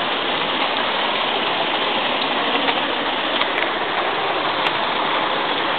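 Running water gushing in a steady, unbroken rush.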